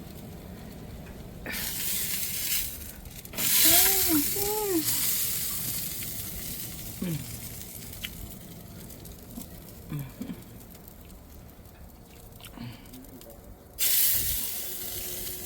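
Ribs sizzling on a grill, in surges of hiss that come on suddenly and slowly fade, three times. Two short rising-and-falling vocal calls sound about four seconds in.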